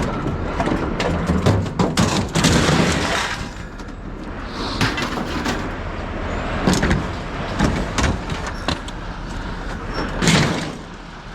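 A run of irregular clanks and crashes over a steady low engine rumble, with a loud cluster of knocks about two to three seconds in and another near the end.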